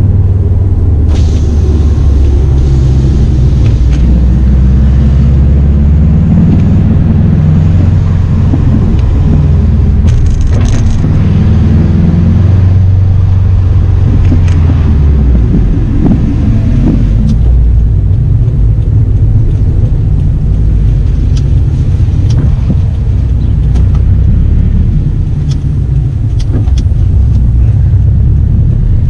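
2016 Subaru WRX STI's turbocharged 2.5-litre boxer four running through its SPT performance exhaust while being driven, a loud low rumble whose pitch shifts up and down several times as the car accelerates and changes gear.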